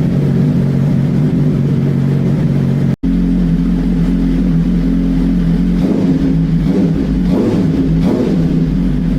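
Suzuki GSX-R 1000R's inline-four engine running steadily at idle through a titanium Arrow Pro Race slip-on exhaust. The sound cuts out for an instant about three seconds in.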